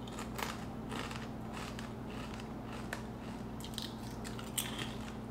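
Kettle-cooked potato chips crunching as a person bites and chews them: irregular sharp crunches with short pauses between.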